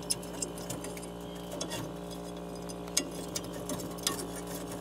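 Light metal clicks and clinks, a handful spread unevenly, as a steel igniter bracket and electrode are handled and fitted onto a water heater burner assembly, over a steady low hum.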